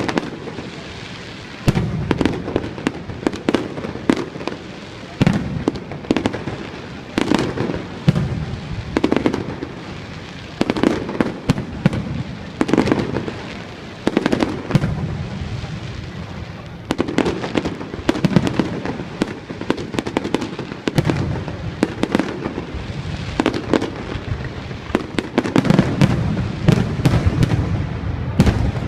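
Fireworks going off in repeated volleys: clusters of sharp bangs with low booms about every one and a half to two seconds, with crackling between them.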